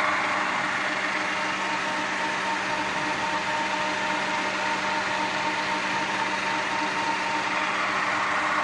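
Milling machine running: a steady mechanical hum from the motor and gearbox, with several steady tones over a dense whir that holds an even level throughout.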